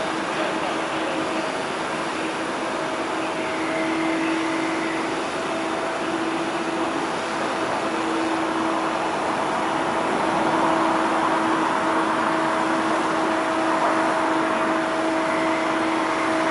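Large mobile crane's diesel engine running steadily under load with a steady whine, as it lowers a 54-ton tower module; it gets a little louder about ten seconds in.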